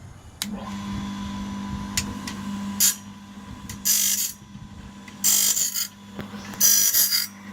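Sawmill band-blade sharpener's electric motor starting up and running with a steady hum. Its grinding wheel comes down on the blade teeth in four short, hissing grinding strokes, one about every second and a half, as the blade is indexed tooth by tooth.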